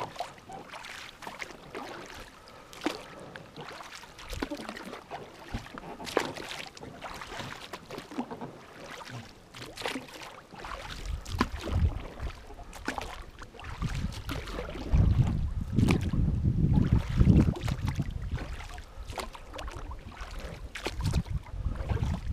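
Inflatable boat being rowed across marsh water: irregular oar splashes and knocks. From about halfway, a low rumble of wind on the microphone grows over them.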